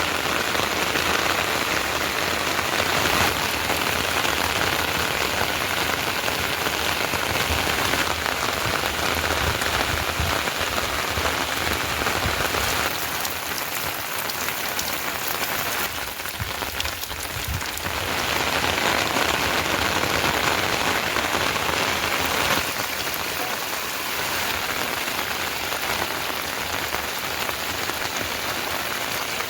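Steady rain falling, easing slightly for a few seconds midway.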